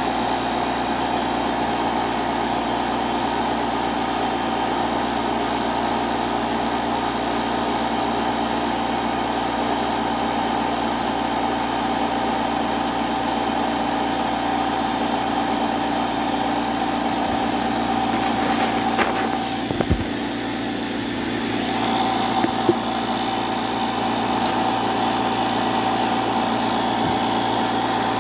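A small electric motor running with a steady hum. It dips briefly about two-thirds of the way through, with a few sharp knocks.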